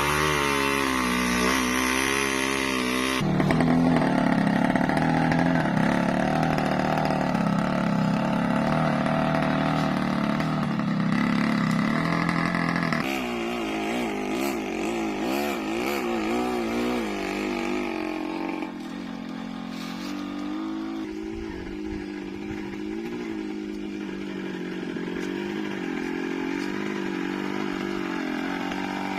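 Two-stroke Yamaha motorcycle engine running under a heavy timber load, its pitch rising and falling as the throttle is worked. The engine sound shifts abruptly a few times, about 3, 13 and 19 seconds in.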